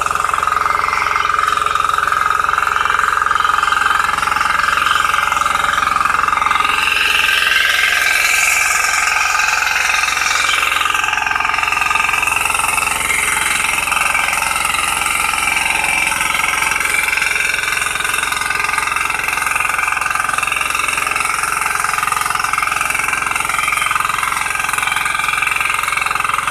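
Power weeder's small engine running steadily under load as its rotor tills the soil.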